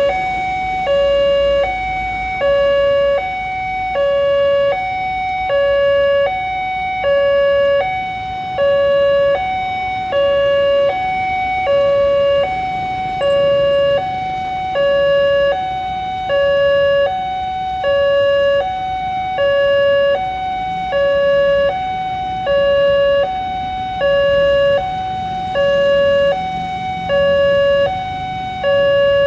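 Railway level-crossing electronic warning alarm sounding a steady two-tone, high-low pattern, switching pitch about every 0.8 seconds: the signal that a train is approaching the crossing.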